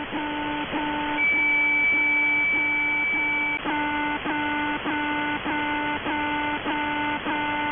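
'The Alarm' shortwave channel marker received on 4770 kHz in upper sideband: a buzzy, multi-tone beep repeating about twice a second. A steady high whistle sounds over it for a couple of seconds from about a second in.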